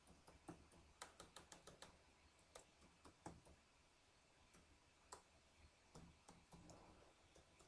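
Faint keystrokes on a computer keyboard: an irregular run of short clicks, thickest about one to two seconds in and sparser later.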